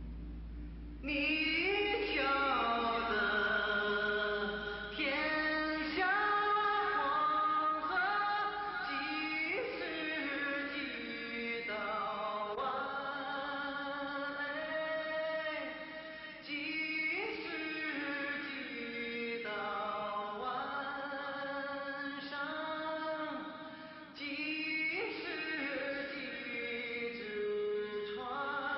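Vocal music: a choir singing long held notes, with phrases that open on rising swoops. It comes in about a second in.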